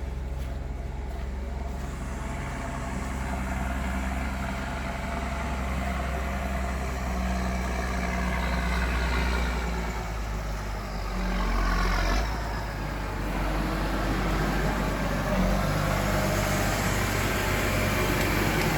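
Heavy vehicle engine running steadily, its pitch rising and falling around the middle as it works harder and then eases.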